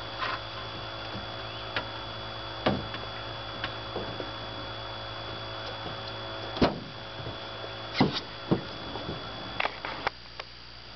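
A few sharp knocks and clunks, the loudest about halfway through and two-thirds of the way in, as a flathead catfish is handled on an aluminium boat, over a steady low hum.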